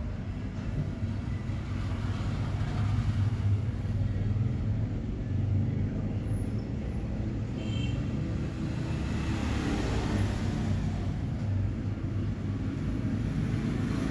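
Steady low background rumble that swells up and then eases off again about nine to eleven seconds in.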